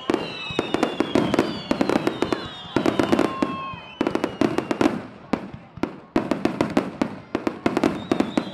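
Japanese fireworks starmine barrage: rapid, overlapping bangs and crackling bursts several times a second, with high whistles gliding slowly down in pitch over them.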